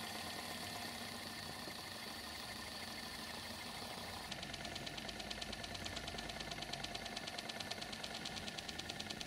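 Small twin-cylinder vertical model steam engine: a steady light hiss, then about four seconds in a fast, even beat of the engine running under steam.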